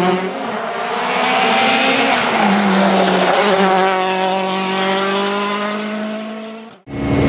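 Citroën DS3 WRC rally car's 1.6-litre turbocharged four-cylinder engine running at high revs, with tyres squealing through a corner. The engine note then holds and sags slightly before the sound cuts off abruptly near the end.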